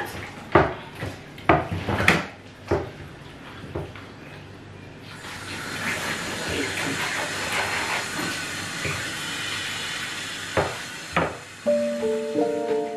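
Sharp knocks and thuds as raw goat meat is handled and cut at a kitchen sink, then a tap running into a steel sink from about five seconds in, with two more knocks near the end. Soft piano music comes in just before the end.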